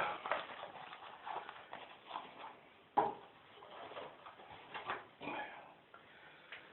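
Faint handling noises of a straight razor and its presentation box: light taps and rustles, with one sharp click about three seconds in.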